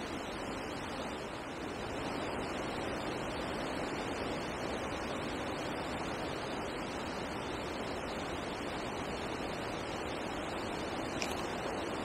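Steady wind noise: an even rushing hiss with a low rumble, wind blowing over the microphone.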